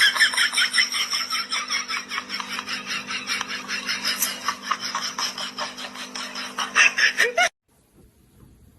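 Long fit of high-pitched, rapid rhythmic laughter, about five bursts a second, that cuts off suddenly about seven and a half seconds in.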